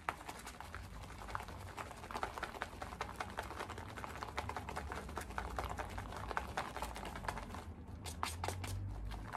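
Natto stirred hard and fast in its pack, the sticky beans and sauce squelching under rapid ticking strokes.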